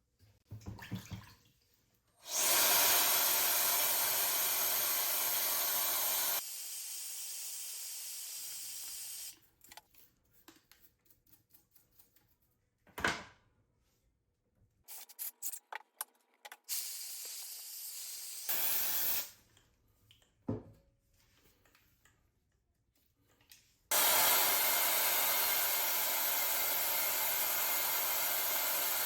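Water running hard with a hiss, in spells that start and stop abruptly. Between the spells come scattered clicks and knocks of parts being handled.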